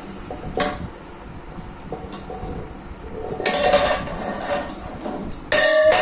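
Steel feeding cup clattering and clinking as a black-capped lory knocks at it with its beak: scattered knocks, with a louder rattling stretch about three and a half seconds in. A much louder sound starts suddenly near the end.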